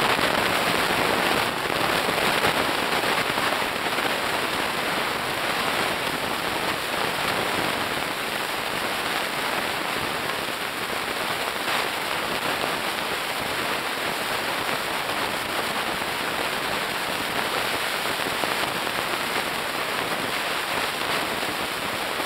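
Steady, dense underwater crackling on a coral reef: the massed snapping of snapping shrimp.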